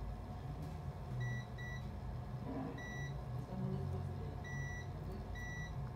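Short electronic beeps from a device on the repair bench: a quick pair, then three single beeps spread out, all on one high pitch, over a low steady hum.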